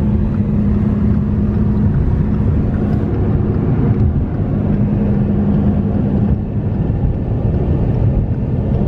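Inside a moving car on a snowy road: steady low engine and tyre rumble, with a constant hum that fades briefly a few times.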